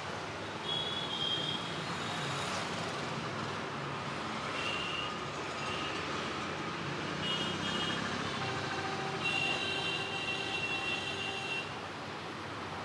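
Steady roadside traffic noise from passing vehicles, with several short high-pitched tones sounding over it, the longest lasting about two seconds near the end.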